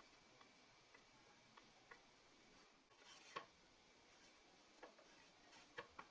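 Near silence with faint, scattered clicks and taps and a louder short scrape and knock about three seconds in: a wooden stick spreading white glue over plywood panels and the panels being handled on the workbench.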